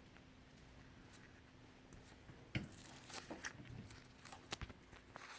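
Hands picking apart the cut-open cardboard casing of a firework, with its powdery filler spilling out. It gives faint scrapes, taps and crinkles that start about halfway in, the sharpest click just after that.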